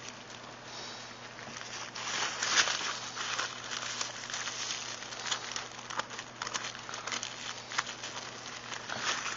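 Irregular crinkling and rustling of paper and plastic as old firework packets are handled, over a faint steady hum.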